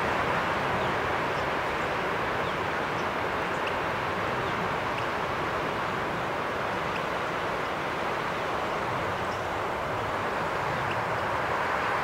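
A steady rushing outdoor background noise that holds an even level throughout, with faint, brief high chirps of small birds scattered about once a second.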